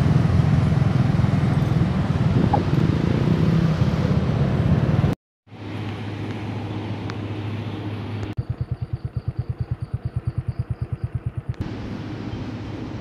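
Motorcycle riding along a road, engine and wind noise on the microphone. After a brief cut-out about five seconds in, a quieter low hum follows, then a low, even pulsing at about eight beats a second for a few seconds.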